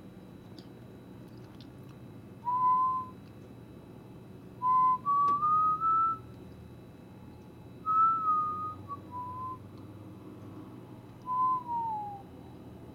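A person whistling a slow tune in four short phrases: one held note, a run of notes stepping up, a run stepping back down, and a last note sliding downward.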